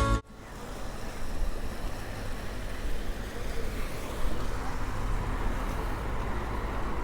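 Background music cuts off right at the start, giving way to steady outdoor noise: wind rumbling on the microphone with a low, even hiss and rumble beneath.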